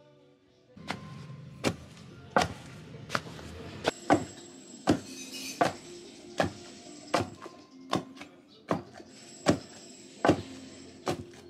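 Wooden pestle pounding a hot, soft mash of cooked root crop in a wooden mortar, in steady strokes about every three-quarters of a second, over background music.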